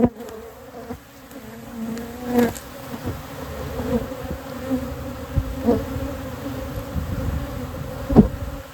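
Honeybees buzzing around their hives: a steady hum, with single bees flying close past now and then so that the buzz swells and fades.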